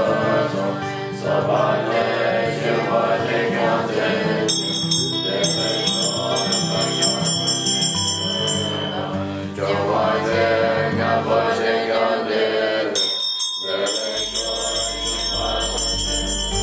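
Tibetan Buddhist monks chanting together in low held tones. A ritual bell rings rapidly from about a third of the way in, stops, and rings again near the end, when a deep low drone also comes in.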